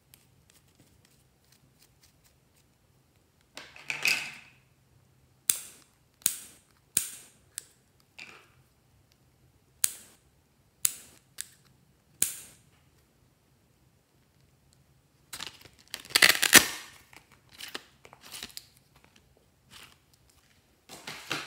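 Scissors snipping through plastic gel-pen barrels: a run of sharp snaps, one cut after another. A longer, louder rustling noise comes about two-thirds of the way in.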